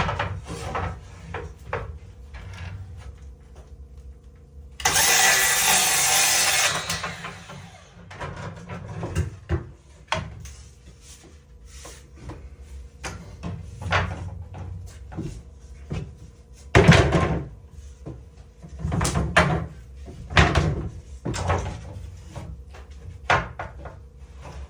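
Carpentry work on wooden wall boards: scattered knocks and clatter of wood being handled and fitted, with a steady burst of a power tool lasting about two seconds, starting about five seconds in.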